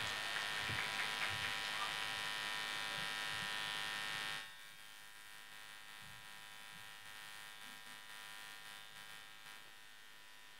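Steady electrical buzz and hum from the stage sound system, a drone with many overtones. It drops sharply about four and a half seconds in and carries on faintly.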